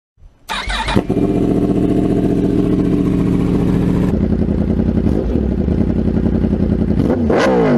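Italika 250Z motorcycle engine running at a steady idle, revved near the end with the pitch rising and falling.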